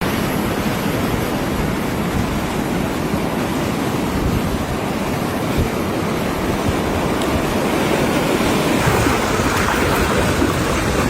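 Floodwater rushing, a steady noise without breaks.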